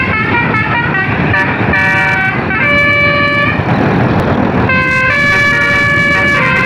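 Telolet basuri multi-trumpet bus air horn playing a tune: quick short notes, then a held chord. About halfway through the notes give way to a second or so of rushing noise, and a long chord then sounds to the end.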